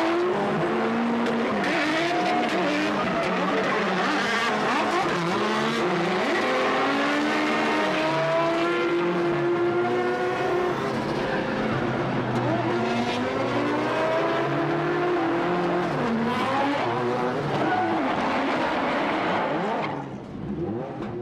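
Drift cars running in tandem, engines revving up and down over one another with tyres squealing, heard from inside a following car. The sound fades out near the end.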